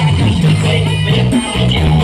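Loud DJ remix music with a heavy, held bass line, played through a large carnival sound system.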